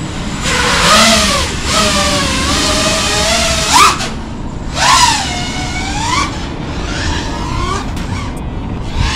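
5-inch FPV freestyle quadcopter's motors and propellers whining in flight, the pitch sweeping up and down with the throttle in repeated surges. The sharpest rise comes just before four seconds in, and it is quieter from about seven seconds on.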